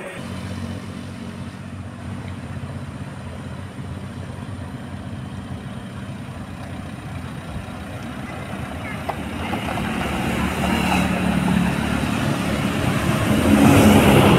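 Road traffic: a steady engine hum from motor vehicles, growing louder over the last few seconds as a bus passes close by.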